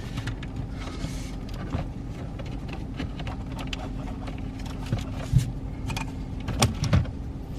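Plastic dash trim panel of a Dodge Challenger being worked loose and pulled off by hand, with scattered clicks and knocks as its retaining clips let go, several sharp ones in the second half. A steady low hum runs underneath.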